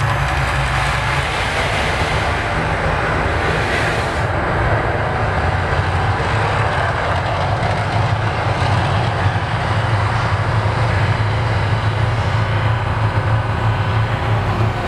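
Mirage volcano show erupting: a loud, steady low rumble, with a hissing rush of gas flames that dies away about four seconds in.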